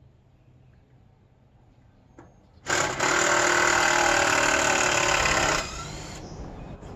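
Cordless drill driving a screw to fasten a ladder guide rail to an oak log: after a few seconds of quiet the motor starts suddenly and runs hard for about three seconds, then stops and winds down.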